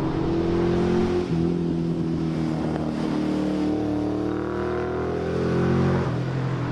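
Valiant Charger's engine revving hard under acceleration, its pitch dropping about a second in at a gear change, then climbing steadily before easing near the end.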